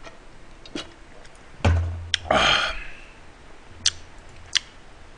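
Handling sounds after a swig from a plastic bottle at a table: a heavy thump about one and a half seconds in, a short breathy exhale right after, then a few light clicks.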